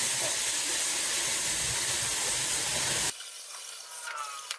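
CNC plasma cutter's torch firing and cutting steel plate: a loud, steady hiss of the air plasma arc that cuts off abruptly about three seconds in, leaving quieter ticking and a faint whine.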